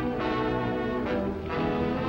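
Orchestral background music with brass, playing held chords.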